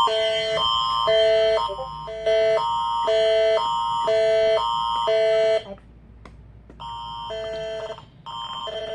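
Canadian Alert Ready emergency alert attention signal: two chords alternating about every half second, the alarm that opens an alert. It breaks off a little past halfway, then comes back fainter and grows loud again near the end.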